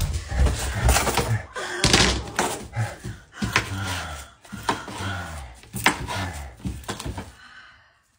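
A large kitchen knife chopping cucumbers on a cutting board, giving several sharp thunks. Between the chops a woman cries out and laughs.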